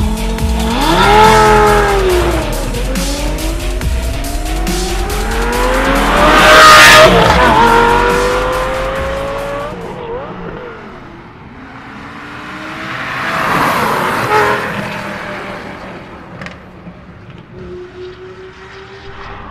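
Lamborghini Gallardo's V10 launching hard and accelerating up through the gears, its note climbing and dropping back at each shift, loudest about seven seconds in. Electronic dance music with a steady beat runs under the engine for the first half. Later the engine swells and fades once more.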